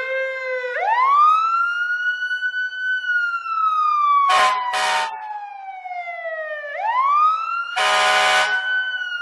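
Emergency vehicle siren wailing, its pitch rising quickly and then falling slowly, twice. Two short horn blasts sound about four seconds in and a longer blast near the end.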